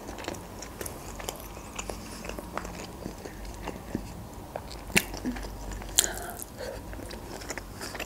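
Close-up mouth sounds of chewing and biting chicken chops and broccoli: a run of small wet clicks, with two sharper, louder ones about five and six seconds in.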